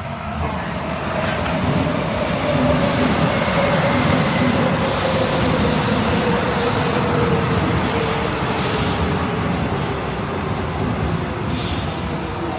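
Subway train pulling into a station: a loud rumble of wheels on the rails with a motor whine that falls slowly in pitch as the train slows. A brief high wheel squeal comes about two seconds in, and a short hiss near the end.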